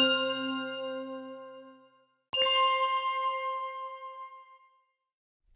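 Two bell-like chime strikes, each ringing out with several tones and fading away over about two seconds; the second is struck a little over two seconds in.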